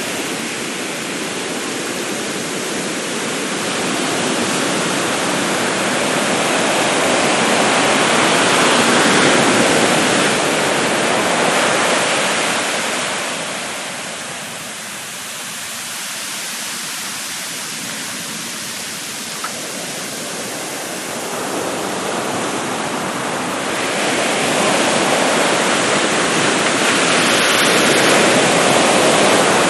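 Surf breaking and washing up a sandy beach in a continuous rush. It swells and eases slowly, with a quieter lull in the middle before the waves build again near the end.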